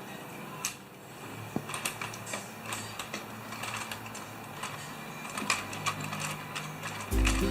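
Irregular light mechanical clicking and clattering, with a faint low hum underneath.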